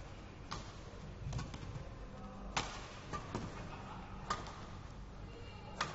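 Badminton rally: rackets striking the shuttlecock, about six sharp cracks roughly a second apart, over a low steady hum.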